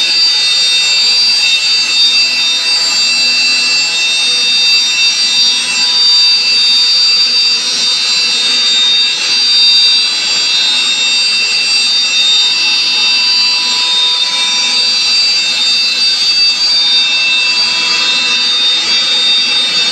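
CNC router spindle running at high speed while its bit cuts 18 mm plywood: a loud, steady high-pitched whine over a noisy cutting hiss.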